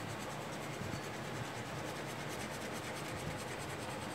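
Fountain pen nib scratching across watercolour paper in quick, repeated hatching strokes.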